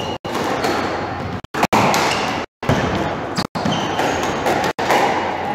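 Squash rally: the ball being struck and hitting the walls while shoes squeak on the wooden court floor. The sound cuts out completely for brief moments several times.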